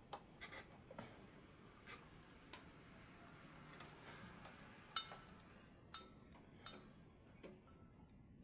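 About a dozen irregular sharp clicks and small taps of tools and parts being handled on a smartphone repair bench, the loudest two about five and six seconds in.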